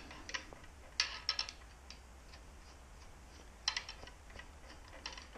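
A few light clicks and taps from handling a sump pump and its steel bracket, in a quick cluster about a second in and another just before four seconds, over a low steady hum.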